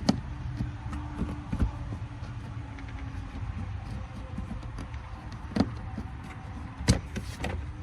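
Scattered sharp clicks and knocks as the plastic access cover on an unstarted portable inverter generator is twisted loose and handled, the loudest knock near the end, over a steady low hum.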